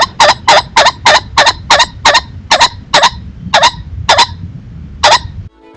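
Common pheasant calling a long run of loud, harsh 'kok' notes, about four a second at first, spacing out and stopping near the end.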